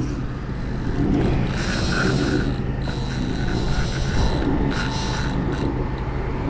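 Spinning reel's drag buzzing and clicking steadily as a hooked fish runs hard and strips line from the reel on light 6 lb line.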